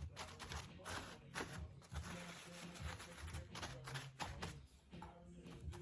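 Faint, irregular brushing and rustling as tissue paper is glued down with Mod Podge and a brush.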